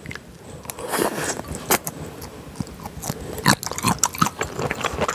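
Close-miked chewing of soy-marinated baby octopus, with irregular sharp mouth clicks and crackles as the chewy octopus is bitten and worked between the teeth.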